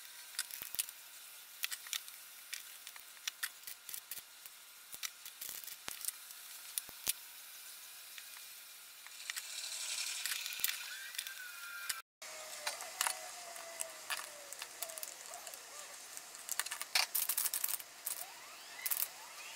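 Light clicks and taps of electronic components and a circuit board being handled during capacitor replacement, with a short hiss of solder flux sizzling under a soldering iron about ten seconds in.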